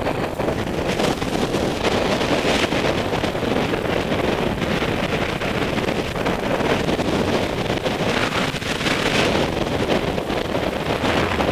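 Wind rushing over the microphone of a camera carried by a paraglider pilot in flight, a steady buffeting noise.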